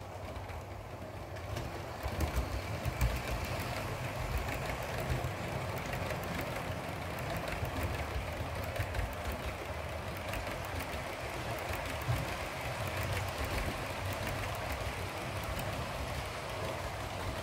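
OO gauge model train of Bachmann Mk2F coaches rolling past on the layout track: a steady low rumble of the wheels on the rails, with rapid, irregular clicks over the rail joints from about two seconds in.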